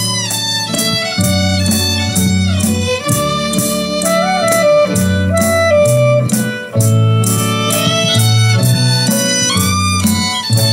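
Music played back through a pair of Pioneer S-C4-S bookshelf speakers: the instrumental intro of a Thai song, a gliding lead melody over steady bass notes and a regular beat.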